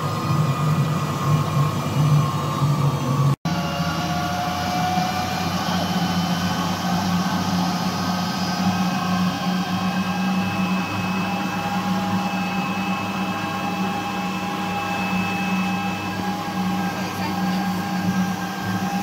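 Mercury outboard motor running steadily at speed, a low drone with higher whining tones over it, along with the rush of the boat's wake. The sound drops out for an instant about three and a half seconds in.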